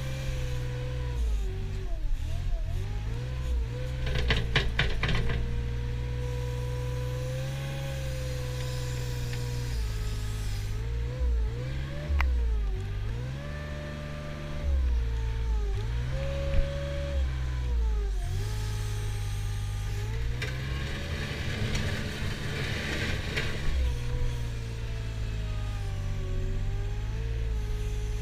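Mustang compact wheel loader's diesel engine running while it works, its pitch dipping and recovering again and again as the loader drives and its bucket takes load in a pile of cut grass. There is a brief rattle about four seconds in and a single sharp knock past the middle.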